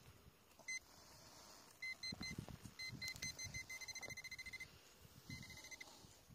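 Metal-detecting pinpointer probe beeping in a dug hole: short high beeps in small groups that quicken into a fast run about four seconds in as the tip closes on a buried piece of aluminium, with dirt scraping under it.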